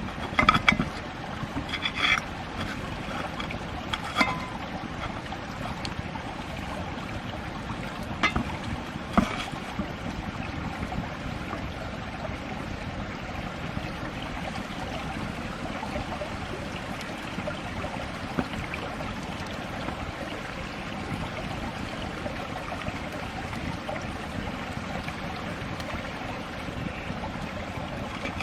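Steady outdoor rushing noise, with several sharp clinks and knocks in the first ten seconds.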